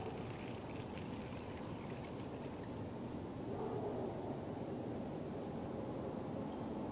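Dark film ambience: a steady low rumble under a faint high chirp repeating about three or four times a second, with a low hum swelling in about halfway through.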